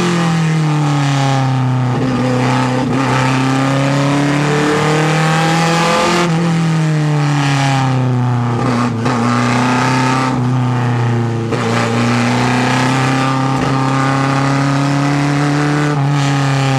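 Lancia Fulvia HF F&M barchetta's narrow-angle V4 race engine at full load, heard from the open cockpit. Its pitch climbs, falls away over a few seconds from about six seconds in, then climbs again, with several brief dips along the way.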